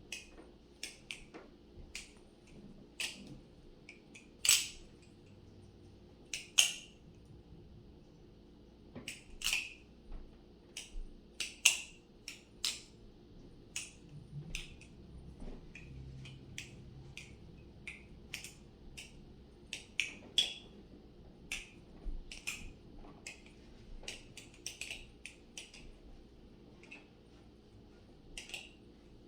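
Aluminium channel-handle balisong (Marcolo C116) being flipped: irregular sharp clicks and clacks as the handles swing shut and strike each other and the blade, at times several a second.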